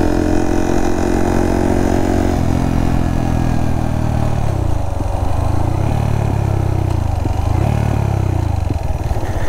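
Single-cylinder engine of a Honda Monkey fitted with a Kitaco 181cc big-bore kit, running under way. The engine note is steady at first and drops about two seconds in, then rises and falls several times. Near the end it settles to slow, even firing pulses.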